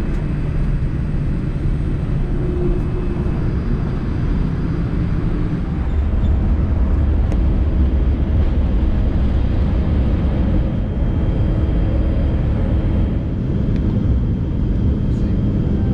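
Jet airliner engine and cabin noise heard from inside the cabin during takeoff: a steady rumbling roar that grows louder and deeper about six seconds in, as the plane rolls down the runway and climbs.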